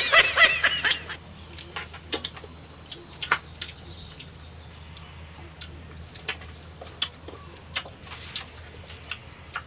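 Wet sucking and smacking clicks of people eating santol fruit pulp, scattered irregularly over a steady low hum. In the first second, a burst of high-pitched, wavering vocal-like sounds.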